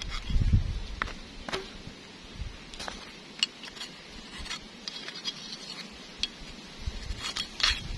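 Scattered light clicks and scrapes of a screwdriver working at the old oil seal in a rotary tiller's wheel-shaft seal housing, with a few dull knocks as the housing is handled.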